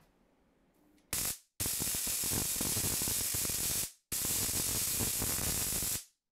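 Homemade high-voltage coil firing on 50 Hz AC: its doorknob spark gap and the arcs between its electrodes give a loud, harsh crackling buzz. It comes in three bursts, a brief one about a second in, then two of about two seconds each, each cutting off suddenly.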